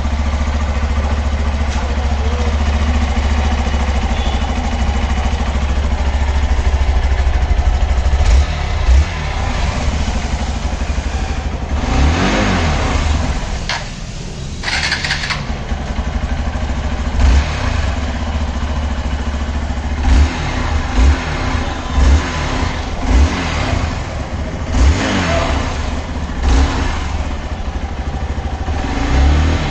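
Hero Xpulse 200 2V motorcycle's single-cylinder, two-valve engine idling, then revved with the throttle: a few longer revs that rise and fall, followed by a run of short throttle blips about a second apart.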